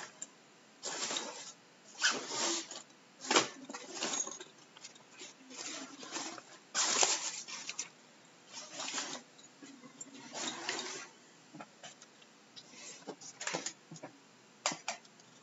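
Irregular rustling, scraping and bumping of a headset microphone being handled and put on, in short noisy bursts about once a second with a few sharp clicks.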